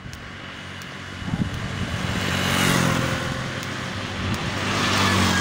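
Motor vehicles passing close by on an asphalt road, a motorcycle among them. An engine hum starts about a second in, and tyre and road noise swells twice, near three seconds and again near five.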